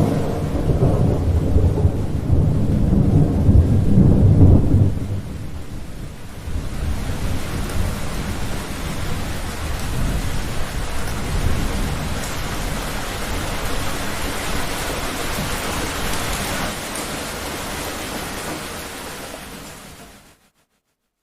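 Thunder rumbling heavily for about five seconds, then steady heavy rain with a low rumble beneath it, fading out shortly before the end.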